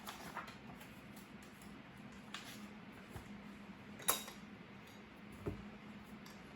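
Small desk sounds while studying: scattered light clicks and taps over a faint steady hum, with one sharper clink about four seconds in and a soft knock a moment later.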